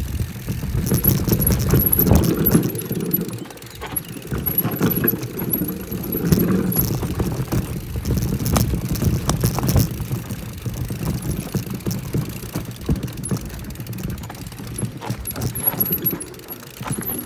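Mountain bike descending a rough forest trail: tyres rumbling over dirt and roots, with the chain and frame rattling and clicking over the bumps, swelling and easing as the ground changes.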